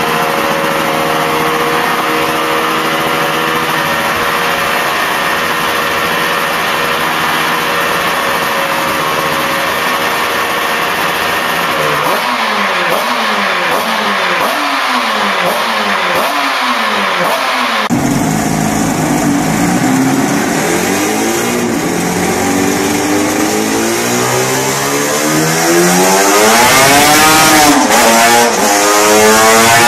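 Ronax 500 V4 two-stroke engine idling steadily, then blipped repeatedly, its pitch sweeping up and down. About two-thirds of the way in the sound cuts abruptly to a Yamaha RZ500 V4 two-stroke revving on a dynamometer, its pitch climbing and falling and getting louder near the end.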